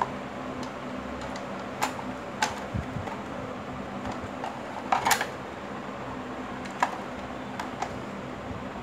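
Hard plastic parts of a manual vegetable dicer set clicking and knocking as they are handled and fitted into the clear plastic container, about half a dozen knocks with the loudest cluster about five seconds in. A steady hum runs underneath.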